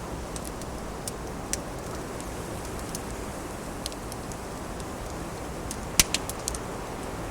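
Wood fire crackling, with scattered sharp pops and a loud cluster of pops about six seconds in, over a steady rush of wind.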